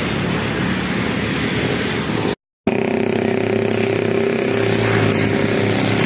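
Motor vehicle engine running with road noise, heard while riding along, with a steady hum. The sound drops out completely for a moment about two and a half seconds in.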